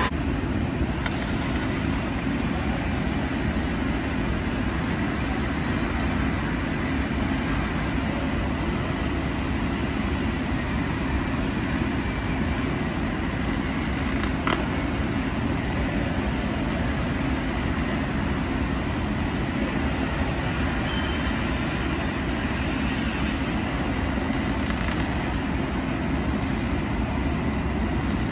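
Electric arc welding on a large steel pipe: the arc sizzles steadily throughout, with one sharp click about halfway through.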